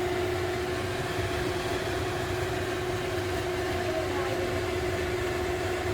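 Kitchen range hood exhaust fan running steadily: a constant motor hum over the rush of air.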